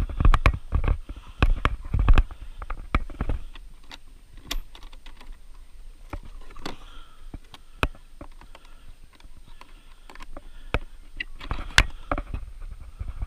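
Scattered clicks and knocks as a ferret is handled into a metal ferret carry box, with footsteps and rustling on dry leaf litter. Heavier thumps come in the first few seconds.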